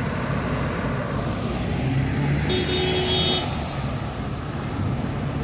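Road vehicle running, with a steady low engine rumble and road noise; a brief tone sounds for about a second near the middle.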